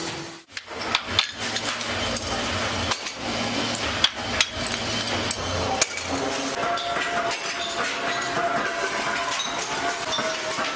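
Irregular sharp knocks and clinks of metal on metal, like hammer taps, the loudest about a second in and about four seconds in. A steady tone joins about halfway through.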